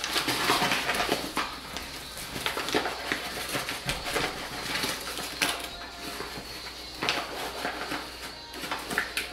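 Paper flour bag crinkling and rustling in irregular crackles as a hand scoops flour out of it, loudest in the first second.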